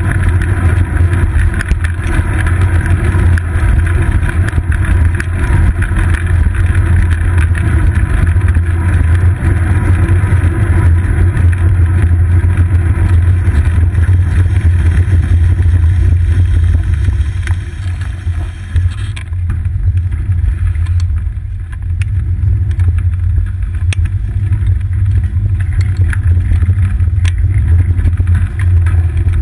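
Steady low rumble of wind buffeting and road vibration picked up by a seat-post-mounted GoPro Hero 2 in its housing on a moving bicycle. The rumble eases and goes duller a little past the middle.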